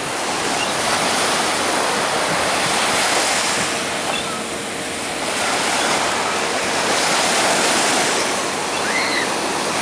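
Small waves washing in to the shore: a steady rush of surf that swells and eases every few seconds.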